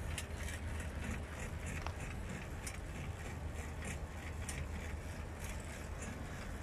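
Bin-lifting mechanism of a homemade RC garbage truck: a low steady motor hum with faint, irregular clicking from its gears and linkage.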